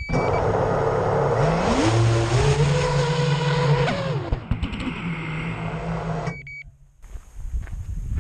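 FPV mini quad's motors and propellers whirring with a whine that rises in pitch about a second in, holds, and drops about four seconds in, then cuts off abruptly; crunching steps on gravelly ground follow near the end.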